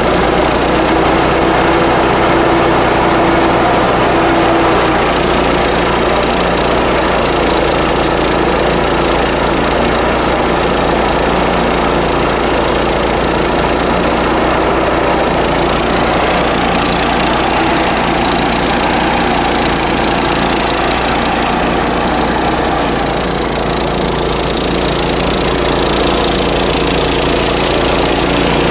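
Small engine-powered rice thresher running steadily, a constant engine drone with a dense whirring noise over it.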